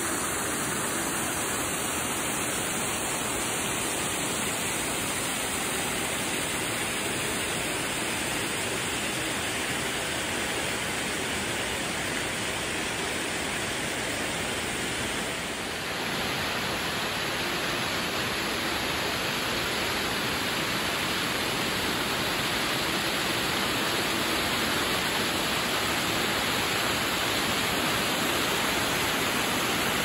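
Rushing water of a mountain waterfall and its stream, a steady even rush. It dips briefly and changes in tone about halfway through.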